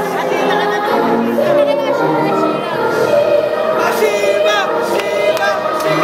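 Music with a choir of voices singing.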